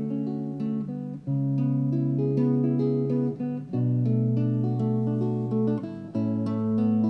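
Acoustic guitar playing chords from a basic guitar-and-voice studio recording, before the voice comes in. The chord changes about every two and a half seconds.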